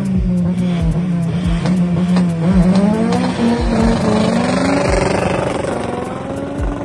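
SEAT Ibiza 6L's engine held at steady high revs on the drag-strip start line, with brief revs that rise in pitch twice and low thumps every second or so.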